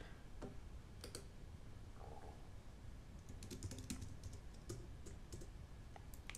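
Faint computer keyboard typing: a few scattered key taps, then a quick run of keystrokes a little over three seconds in.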